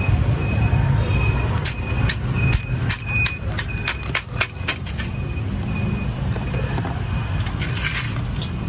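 Steady low rumble of street traffic, with a run of sharp metallic clicks from about two to five seconds in as metal tongs knock against a metal tray and grill grate.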